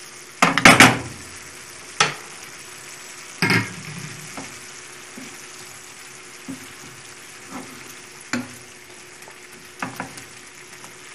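Sliced onions sizzling in a frying pan in butter and oil with a little added water, which is cooking off. A wooden spoon stirs them, knocking and scraping against the pan several times, loudest about a second in.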